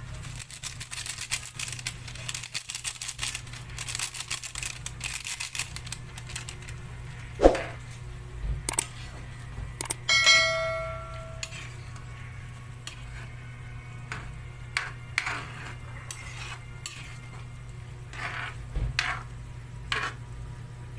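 Metal spoon stirring and scraping in a cooking pot, with scattered clinks and knocks. There is a sharp knock about seven seconds in and a ringing metal clang about ten seconds in. A steady low hum runs underneath.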